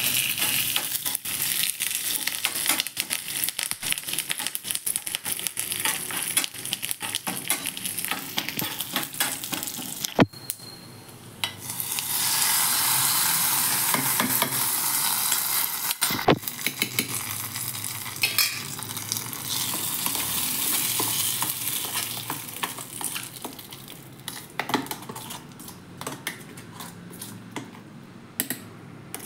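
Mustard seeds, urad dal and dried red chillies crackling and popping in hot oil in a small tempering pan, stirred with a metal spoon. After a short break, a louder, steady sizzle as the hot tempering is poured onto the coconut chutney, fading away as it is stirred in.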